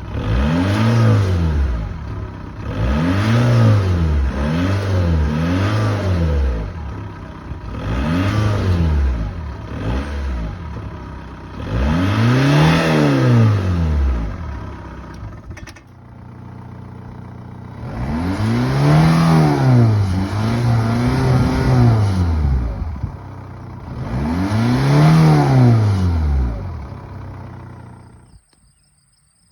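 Volkswagen Jetta engine revved about nine times through a homemade side-exit exhaust stack welded up the side of the car. Each rev climbs and falls back, some in quick pairs, with pauses at idle in between, and it stops near the end.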